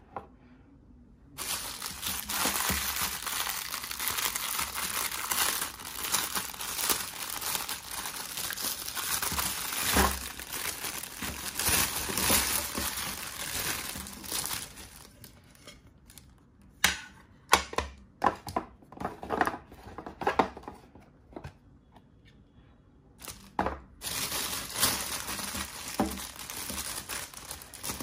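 Thin clear plastic bag crinkling and rustling as hands work the figure out of it. There is dense, continuous crinkling through the first half, then scattered sharp crackles, then steady crinkling again near the end.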